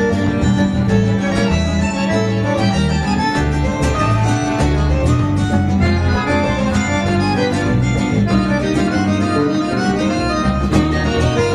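A live instrumental band tune: a Fender electric bass played fingerstyle carries a line of steady low notes under the melody instruments.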